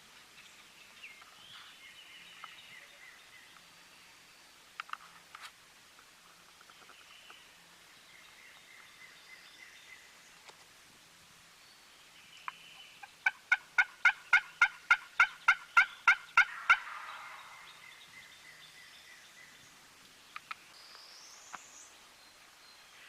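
Turkey yelping: a run of about fourteen evenly spaced, steady-pitched yelps at about four a second, starting just past the middle and cutting off after about three and a half seconds. Faint songbird chirps are heard before and after.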